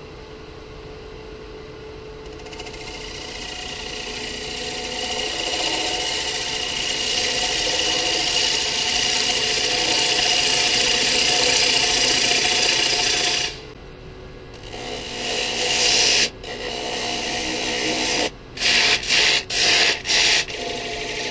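Bowl gouge cutting the wall of a rough-sawn walnut bowl on a running Powermatic wood lathe: a hiss of shavings over the lathe's steady hum, starting a couple of seconds in and growing louder. The cut breaks off for about a second past the middle, and then several more times in short gaps near the end.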